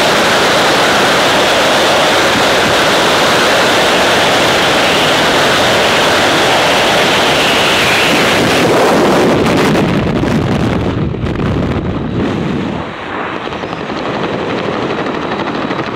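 Loud rush of freefall wind over a skydiver's helmet-mounted camera. About nine seconds in the high hiss falls away and it turns into a lower, uneven flutter as the parachute opens and the fall slows.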